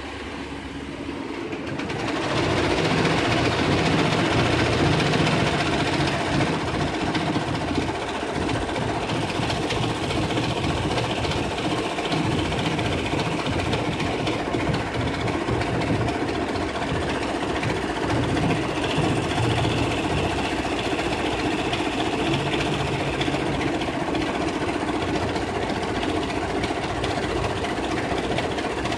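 Two-head Brother multi-needle commercial embroidery machine stitching a logo. It comes up to speed over the first couple of seconds, then runs steadily with a fast, even needle action.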